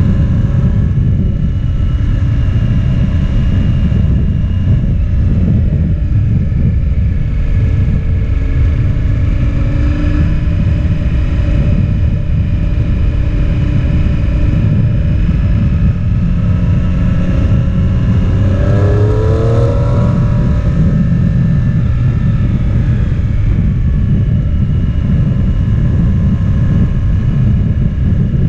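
Motorcycle engine running while riding at road speed, under a heavy low rumble of wind on the camera microphone. A little past halfway the engine note rises sharply as the bike accelerates.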